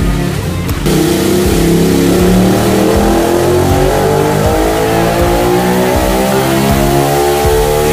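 Ducati Monster 1200's L-twin engine making a wide-open-throttle pull on a chassis dyno. About a second in it opens up, then its pitch climbs steadily as the revs rise.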